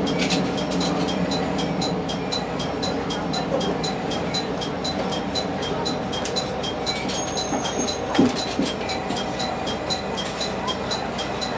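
Diesel railcar running as it creeps into the platform and stops, a steady engine drone with a regular ticking about four times a second. One short knock about eight seconds in.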